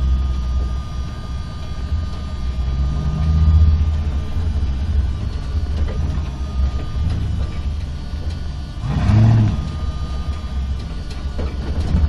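Truck driving inside a parking structure: a steady low engine rumble that swells as the engine revs up a little about three seconds in, then revs up and back down more strongly about nine seconds in, the loudest moment.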